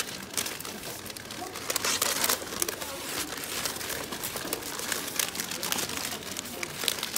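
Brown kraft wrapping paper crinkling and rustling as it is rolled around an item and twisted shut at the end, with many quick crackles.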